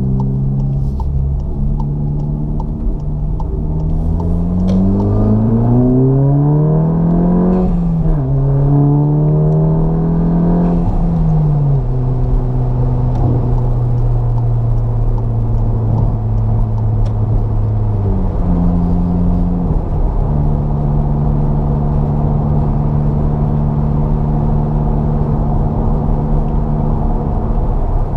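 VW MK7 GTI's turbocharged 2.0-litre four-cylinder with a center-exit cat-back exhaust and aftermarket downpipe, heard from inside the cabin under full-throttle acceleration: the engine note climbs in pitch, drops sharply at an upshift, climbs again and drops at a second upshift. It then holds a steady note as the car cruises, with one more small drop in pitch about two-thirds of the way through.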